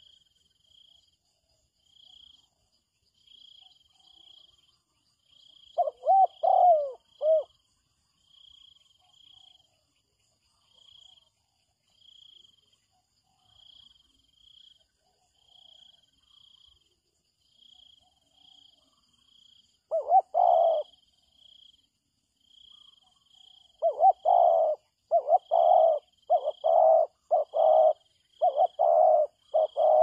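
Spotted dove cooing: a short coo phrase about six seconds in, another near twenty seconds, then a long fast run of repeated coos near the end. A faint high chirp pulses steadily underneath.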